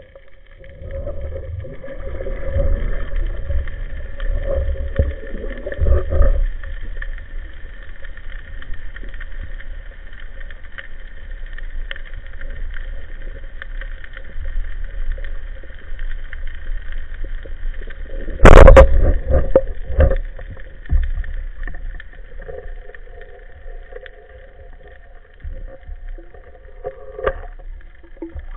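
Underwater sound through a camera housing: muffled low rumbling of water moving past, over a faint steady hum. About two-thirds of the way through, one loud sharp crack as the rubber-band speargun is fired, followed by a few smaller knocks.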